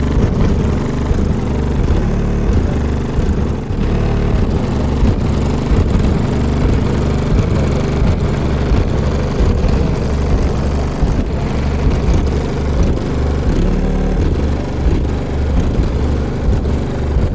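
Bass-heavy music played loud through three Resilient Sounds Team 15-inch subwoofers in a sixth-order bandpass enclosure, the deep bass notes shifting step by step.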